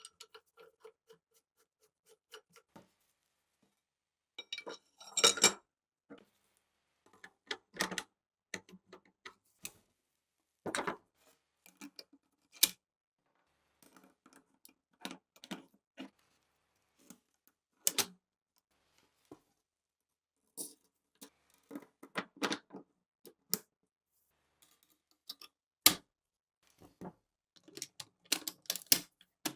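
Metal gun parts being handled and fitted: sharp clicks and clanks at irregular intervals, with a quick cluster about five seconds in and another near the end.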